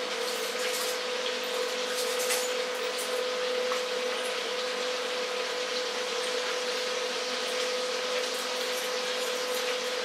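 A steady hum with a constant mid-pitched tone, with a few faint clicks in the first couple of seconds.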